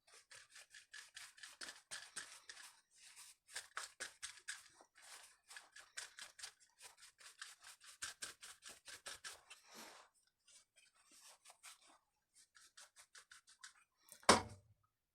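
A stiff brush scrubbing a chainsaw part in quick short strokes, about five a second, working at caked chain oil and dust. The strokes stop about ten seconds in, come back faintly, and a single sharp knock sounds near the end.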